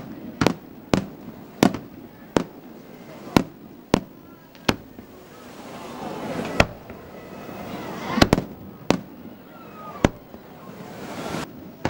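Aerial fireworks display: about a dozen sharp shell bursts at irregular intervals, roughly one a second, some in quick pairs, with a hiss that swells between bangs.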